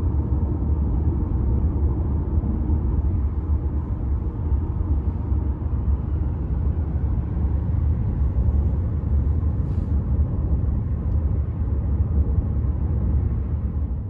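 Steady low rumble of road and engine noise inside a car's cabin while driving on an expressway.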